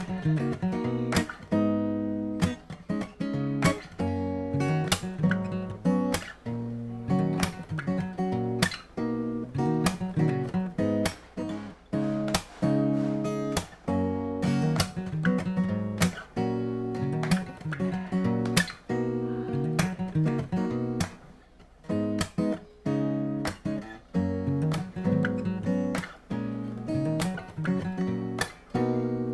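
Shelter Celtic 100 dreadnought acoustic guitar playing a worship song solo, strummed chords with crisp percussive strokes, easing off briefly about three quarters of the way through.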